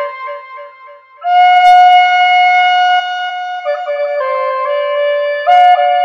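Native American flute playing a slow melody. A few soft notes fade out, then about a second in a loud, breathy note is held for about two seconds before stepping down to lower notes, with another sharply tongued note near the end.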